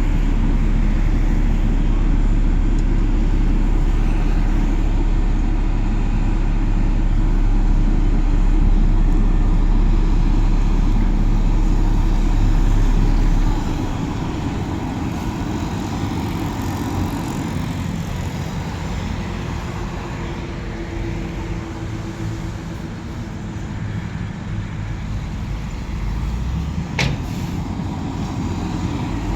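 Heavy diesel construction machinery running with a deep, steady rumble. Just under halfway through, the lowest part of the rumble suddenly drops away and the engine carries on more lightly, with a single sharp click near the end.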